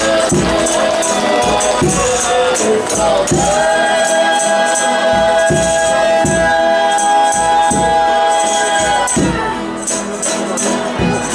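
Folia de Reis music: a tambourine (pandeiro) and drum keep a steady beat about once a second while the group sings. In the middle, several voices hold one long harmonized note for about six seconds, the drawn-out 'ai' that closes a verse.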